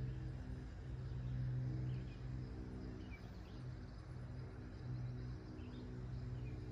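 A steady low motor hum, swelling and easing in loudness at one constant pitch, with a few faint bird chirps.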